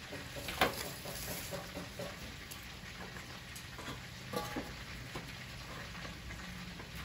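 Light clinks and knocks of chopsticks, plates and a pot at the stove, the sharpest about half a second in and another near the middle, over a faint steady sizzle of frying.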